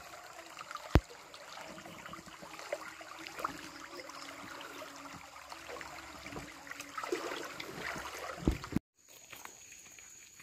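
Shallow stream running over rocks, with splashes and knocks as a slatted fish trap is worked into place in the water. One sharp knock about a second in and two heavy thumps near the end; the sound cuts off abruptly just after them.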